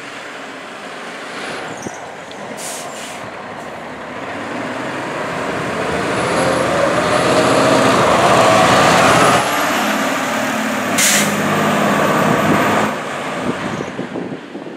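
Aerial ladder fire truck's diesel engine pulling out and accelerating, its note rising, with short air-brake hisses about two and a half seconds in and again about eleven seconds in. The sound fades near the end as the truck drives away.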